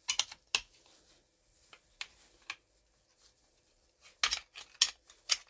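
Sharp metal clicks and clacks as the parts of a Romanian Draco AK-pattern pistol are fitted back together by hand during reassembly: a few at the start, two around the middle, and a quick cluster near the end.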